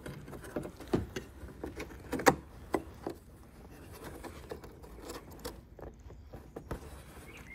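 Hands handling and fitting the plastic wiring plug and parts of a car headlight: scattered small clicks and plastic knocks, the sharpest about two seconds in.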